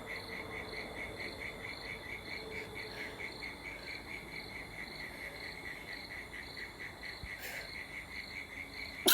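Crickets chirping faintly and steadily, an even pulse of about two chirps a second.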